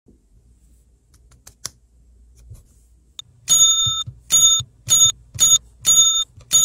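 Toy magic wand's electronic chime: a bright bell-like tone with a sparkly hiss, sounding six times in quick succession about half a second apart, starting about three and a half seconds in. A few faint clicks come before it.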